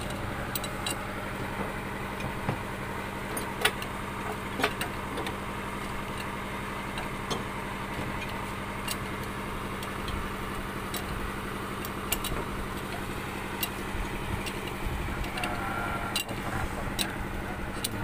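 An engine running steadily, with scattered sharp metal clinks of spanners working on the hydraulic hose fittings of a concrete pump.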